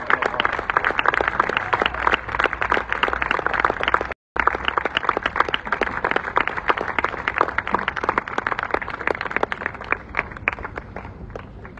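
Audience applauding, a dense patter of many hands clapping. It drops out completely for a moment about four seconds in, then thins out near the end.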